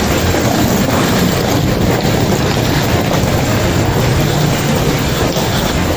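Steady, loud rumble and hiss of an underground subway station's background noise, with no single event standing out.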